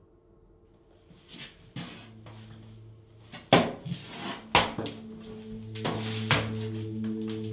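A person climbing out of an empty bathtub, with a few sharp knocks against the tub, over a low held musical drone that builds from about two seconds in.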